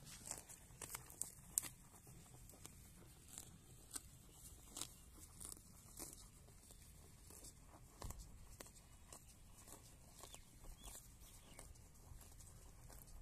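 Cow grazing, tearing off mouthfuls of short grass: faint, irregular ripping snips, about one or two a second, one louder than the rest about a second and a half in.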